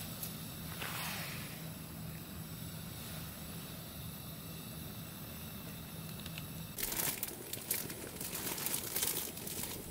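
A portable gas camping stove burns with a steady hiss under a pot of vegetables heating in water. After about seven seconds, irregular crinkling and rustling clicks break in.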